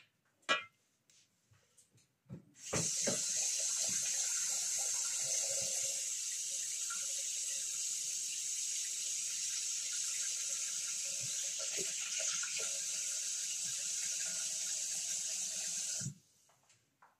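Water running from a tap in a steady stream for about thirteen seconds, then shut off abruptly. A sharp knock about half a second in and a few clicks come just before the water starts.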